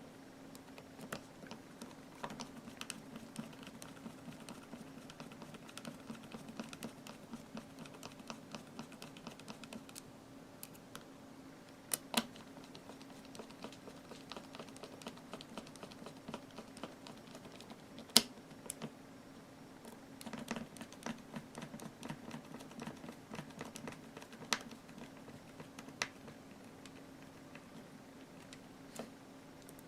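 Small, irregular clicks and taps of screws and a screwdriver on a plastic airsoft gearbox shell as it is screwed back together, with a few sharper knocks about twelve and eighteen seconds in. A steady low hum runs underneath.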